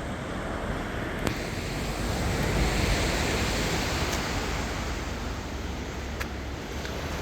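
Sea waves breaking and washing ashore, a steady rush that swells about two to four seconds in.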